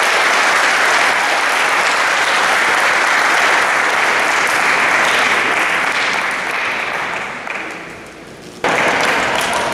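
Audience applauding, the clapping dying away about seven to eight seconds in, then cutting back in abruptly near the end.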